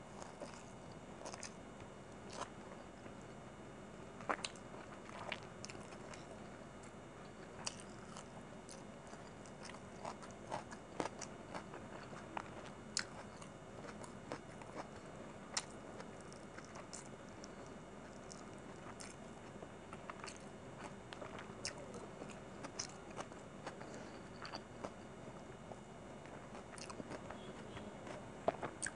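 Close-miked eating of chicken biryani by hand: biting into a chicken leg and chewing, with many short wet mouth clicks and smacks at irregular intervals.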